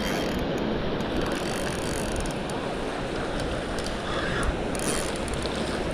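Spinning reel cranked steadily to bring a hooked fish in: a continuous ratcheting, whirring rattle of the reel's gears.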